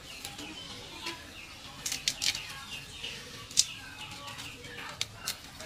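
Dry amaranth seed heads crackling and snapping as they are plucked off the stalks by hand, a string of sharp snaps spread through, with small birds chirping.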